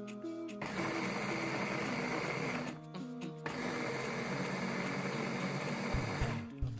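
Electric bowl chopper's motor and blade running, grinding dry Oreo cookies into fine crumbs, in two runs with a short break about three seconds in; it stops just before the end. Background music plays underneath.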